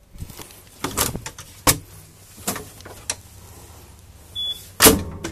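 RV refrigerator and freezer doors being shut and handled: about five sharp knocks and clicks at irregular spacing, the loudest about a second in and near the end, over a low steady hum.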